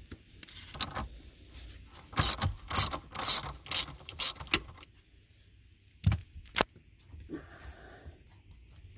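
Hand socket ratchet clicking in quick runs as it turns the 10 mm nut on a car battery's negative terminal clamp, loudest about two to four and a half seconds in, with two more single clicks about six seconds in.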